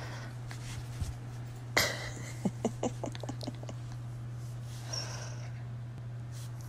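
Miniature poodle snorting and grunting during rough play: one sharp snort about two seconds in, then a quick run of short grunts over the next second, over a steady low hum.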